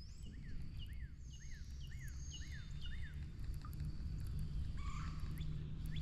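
A songbird singing a run of about six quick down-slurred chirps, roughly two a second, with thinner high calls from other birds, over a steady low rumble.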